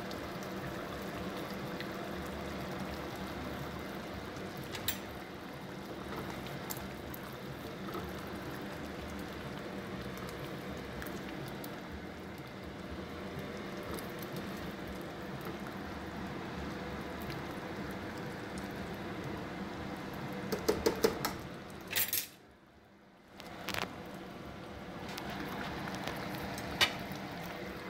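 Pot of beef and potato stew in green chile sauce simmering with a steady bubbling. A metal spoon clinks and scrapes against the stainless steel pot in a cluster of clicks a little past two-thirds of the way through, and again near the end, with a brief drop to near silence between.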